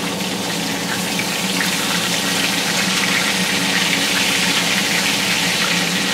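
Pork steaks frying in hot grease in a cast-iron skillet: a steady sizzle full of small crackles, getting louder about two seconds in.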